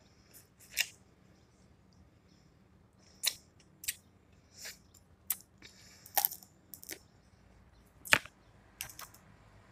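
Close-miked eating sounds from a mouthful of seafood boil: about ten scattered wet smacks, sucks and clicks of lips and mouth on crab leg, the loudest a sharp smack about eight seconds in.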